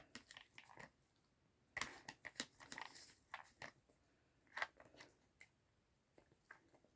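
Dachshund licking and crunching treats out of a treat puzzle toy: faint clusters of short clicks and crunches with brief pauses between them.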